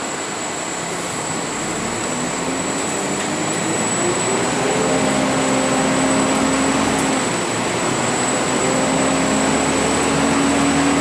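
Volvo B10BLE CNG bus engine pulling the bus up to speed, heard from inside the passenger cabin. Its pitch climbs over the first few seconds, dips briefly about seven seconds in at a gear change, then holds steady. A thin steady high whine runs underneath.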